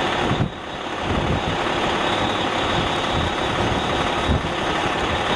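Strong gusty wind buffeting the microphone: a loud, steady rushing noise with irregular low thumps.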